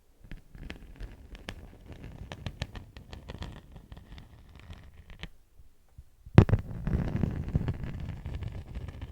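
Beeswax wrap being crinkled and handled: a run of small crackles and taps, a pause of about a second, then a sharp loud crackle followed by denser, heavier crinkling.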